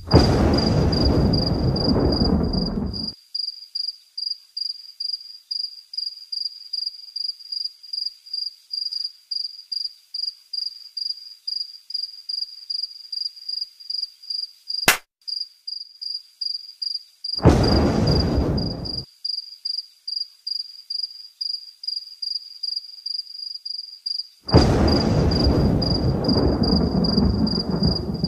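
Crickets chirping in a steady, regular pulse throughout, with three bursts of deep thunder: about three seconds at the start, a shorter one past the middle, and a longer one near the end, each cutting off abruptly. A single sharp click comes about halfway through.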